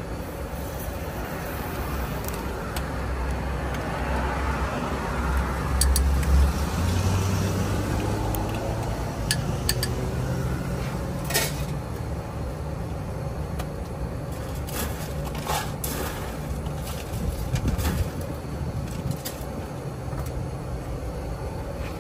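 Low, steady rumble of a running engine, with a few sharp clinks of a metal spoon and utensils against a glass cup and bar tools.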